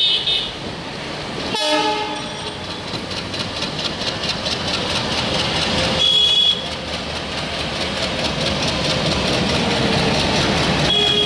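Passenger train hauled by a WDM-3A diesel locomotive running, with a continuous rumble and rhythmic clatter. A short high-pitched toot sounds about six seconds in and another near the end.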